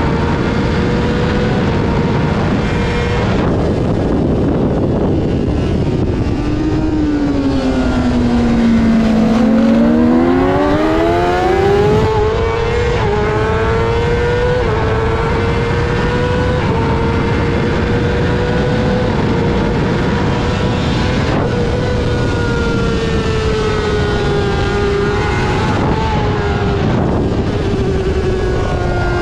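Honda CBR600 inline-four engine racing at high revs. About six seconds in, the pitch drops steeply as the bike slows for a corner, then climbs back as it accelerates hard, and it stays near the top of the rev range with small steps at the gear changes.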